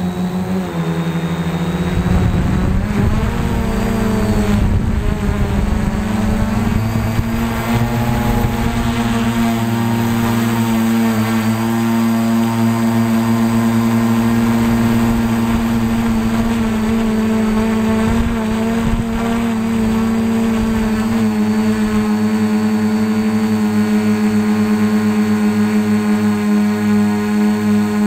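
Carbon-frame quadcopter's motors and propellers droning steadily, heard from the camera on board. Wind buffets the microphone for the first several seconds, and the motor pitch wavers a little past the middle.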